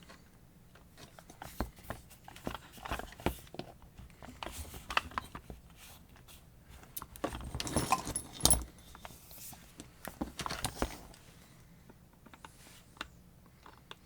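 Irregular clicks, knocks and rattles of small metal and plastic parts as a Warrior 4.5-inch angle grinder is taken apart by hand, with some scraping, the loudest knocks coming in a cluster a little past the middle.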